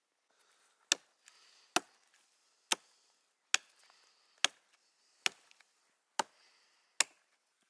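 Hatchet chopping wood: eight sharp strikes at a steady pace, a little under one a second.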